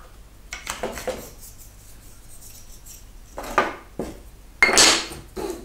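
Small wooden offcuts knocking and clattering against each other and on a wooden workbench as they are sorted through and set down: a few scattered sharp knocks, the loudest near the end.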